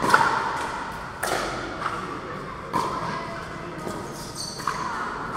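Pickleball rally: paddles striking the plastic ball, heard as about five sharp pops, with the ball's bounces on the court among them, echoing in a large hall.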